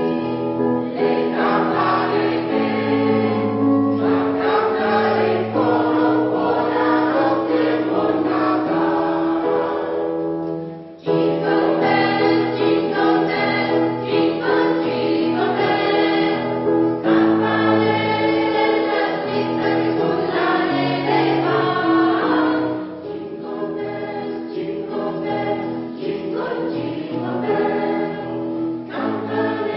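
Polyphonic choir singing a Christmas piece in sustained, many-voiced chords. There is a short break in the sound about eleven seconds in, and the singing turns softer for the last third.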